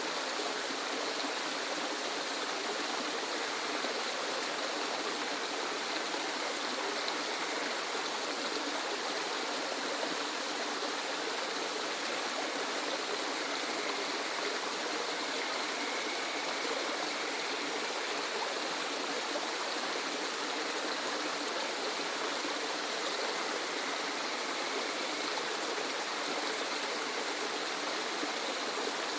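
Waterfall: a steady, unbroken rush of falling water, an even hiss with little deep rumble.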